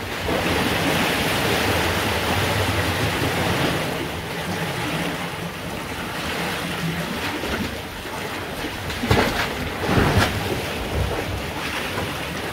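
Ocean waves surging into a narrow rock inlet, whitewater churning and rushing against the rock. The rush is loudest for the first few seconds, and there are two sharper splashes about nine and ten seconds in.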